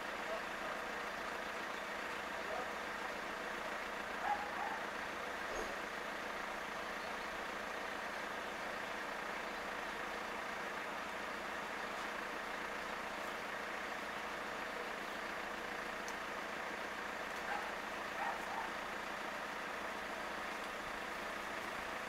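Steady outdoor background hum, with a few faint, brief sounds about four seconds in and again near the eighteen-second mark.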